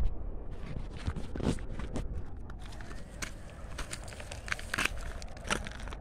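Footsteps crunching on loose stones and gravel on a downhill walk over a stony slope, in an uneven run of small crunches and clicks.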